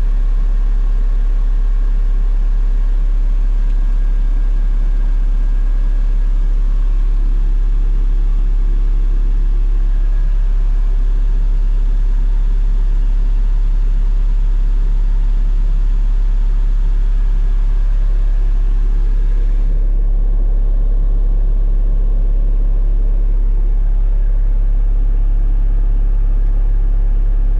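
Takeuchi TS80VS skid steer engine running steadily at idle, a continuous low hum. Its tone shifts slightly about six seconds in, and the higher hiss drops away about twenty seconds in.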